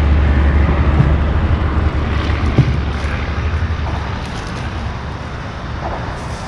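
Riding noise on a Suzuki V-Strom 1050 motorcycle: a steady low rumble of wind and engine on the microphone, easing off gradually through the second half.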